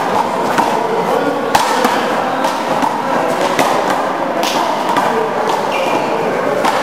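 A handball rally: the rubber handball is struck by hand and smacks off the court walls, giving sharp echoing whacks about a second apart over a steady reverberant room noise.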